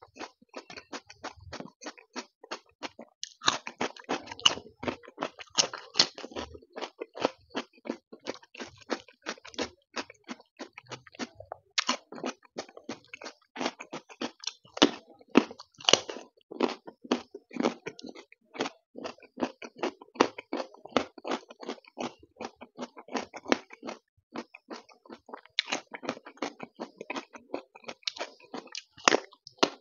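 Close-miked chewing and wet mouth sounds of rice and taro-root curry eaten by hand. Later on, crisp crunching of raw carrot slices.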